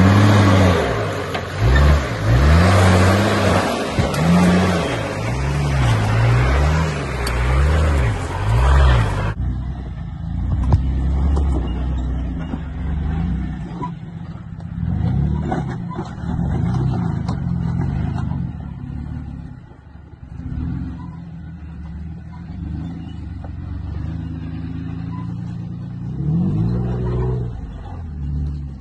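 Four-wheel-drive engines revving in repeated rising and falling bursts while rock crawling up a steep, rocky track. About nine seconds in, the sound cuts to a second vehicle, which revs more quietly as it works over the boulders.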